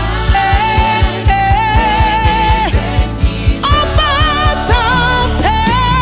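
Live gospel worship music: singers holding long, wavering notes over a band, with a steady beat of low drum hits, about four a second, through the first half.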